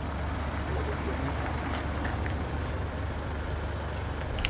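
A vehicle engine idling steadily, a low even hum with no change in speed.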